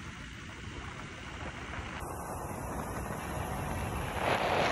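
Road and wind noise from a moving vehicle: a steady low rumble with wind on the microphone. The sound changes abruptly about two seconds in, and a louder hiss of wind swells near the end.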